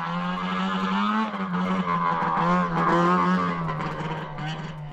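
Snowmobile engine running as the sled pulls away across the snow. The note rises a little about a second in, then eases and grows fainter near the end.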